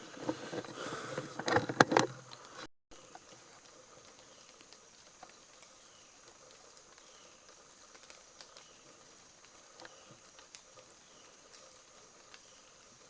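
Knocks and clicks from handling loose gear for about two and a half seconds, then the sound cuts out for a moment. After that comes faint, steady outdoor background with a thin high steady tone and occasional soft ticks.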